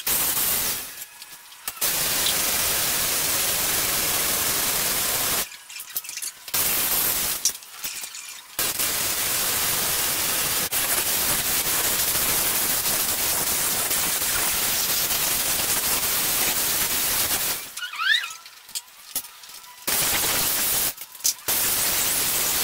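Stick-welding (shielded metal arc) arc crackling and hissing on a steel pipe joint, in long runs that start and stop abruptly, with short breaks where the arc is struck off and a longer pause late on.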